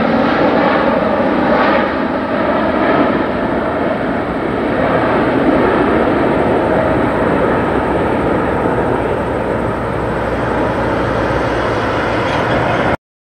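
Jet noise from the four GEnx-2B turbofans of a Boeing 747-8 climbing out after takeoff: a steady, broad rushing sound that eases slightly as the aircraft recedes, then cuts off abruptly near the end.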